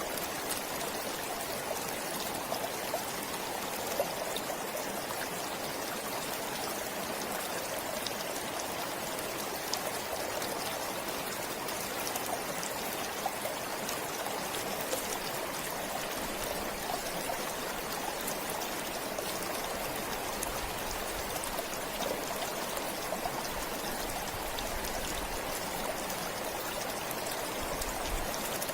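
Stream water flowing steadily, a continuous running and trickling with small splashes.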